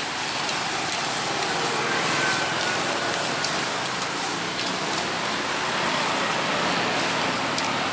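Beef skewers sizzling on a grill: a steady hiss with a few faint crackles.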